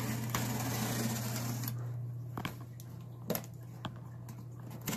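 Box cutter slicing packing tape along the seam of a cardboard shipping box: a scratchy rasp for about the first second and a half, then a few sharp clicks and taps, over a steady low hum.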